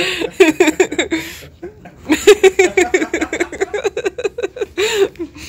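A woman laughing, giggling in quick repeated bursts, with a short pause about two seconds in.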